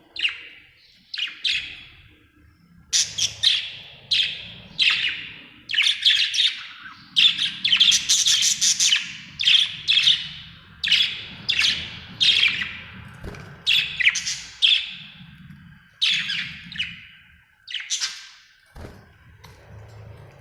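Budgerigar chirping: a long run of short, sharp chirps coming about one to two a second, thickest in the middle, with a brief pause near the start and another near the end.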